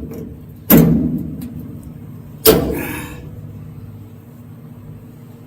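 Two heavy metal bangs about two seconds apart, each ringing out briefly, from the steel cab of a 1965 Chevrolet C10 pickup.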